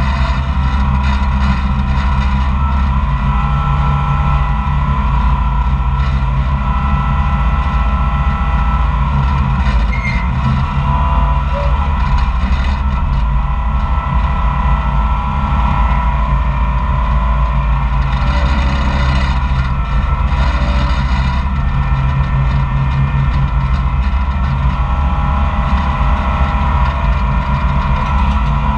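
Koehring 440 dragline's engine running steadily and loudly while the machine works the drag and hoist lines, a constant drone with no break.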